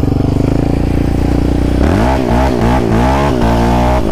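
Sport quad bike's engine running steadily at low speed, then from about two seconds in revving up and down several times in quick succession as the quad speeds up.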